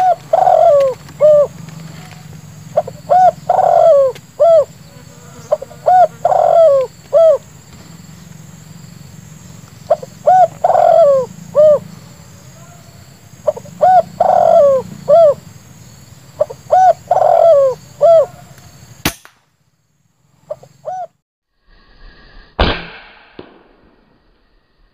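Spotted dove cooing: a short phrase of a few low coos repeated about every three seconds, which cuts off suddenly about three-quarters of the way through. A single sharp crack follows near the end.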